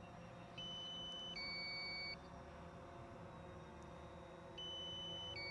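DJI Phantom 4 controller warning beeps: a higher note then a lower one, each under a second, sounding twice about four seconds apart. This is the low-battery alert. A faint steady hum lies underneath.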